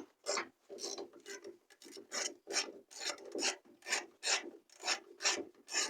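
Hand ratchet wrench worked back and forth in steady strokes, about two a second, its pawl rasping as it tightens door hinge bolts.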